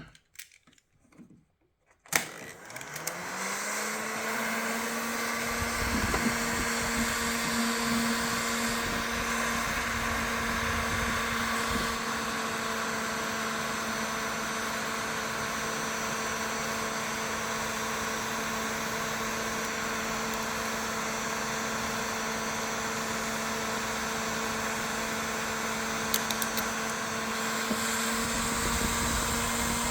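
Heat gun switched on with a click about two seconds in. Its fan motor spins up to a steady hum with rushing air.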